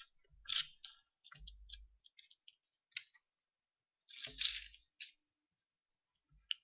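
Bible pages being turned and handled: short scattered paper rustles with a few soft knocks, the biggest flurry about four seconds in.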